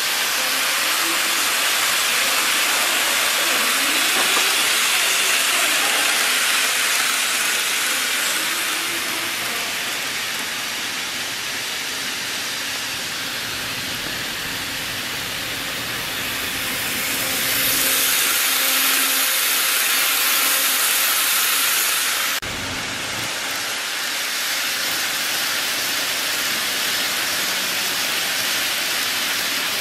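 Model W7/E7 series Shinkansen train running on a layout's viaduct track: a steady rolling hiss of wheels on rail with a faint motor hum. It grows louder past the middle, then drops off suddenly.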